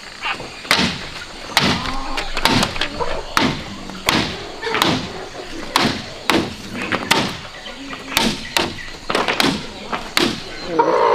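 A machete striking bamboo again and again, more than a dozen sharp knocks at roughly one a second, as bamboo is cut and fitted for a fence.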